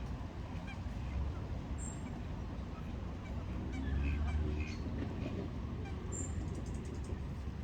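Ducks quacking, a short run of calls bunched together about three to five seconds in, over a steady low rumble.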